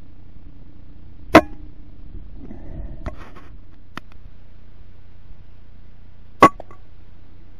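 Two shots from a PCP air rifle, about five seconds apart: each a single sharp report, the first about a second in and the second near the end. Between them come a few fainter clicks and a brief rustle.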